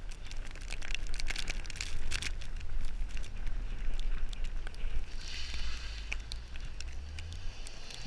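Mitsubishi Lancer Evolution X's turbocharged four-cylinder engine and spinning tyres as the car drifts through deep snow, over a steady low rumble. A hiss swells about five seconds in, and scattered crackling ticks run through it.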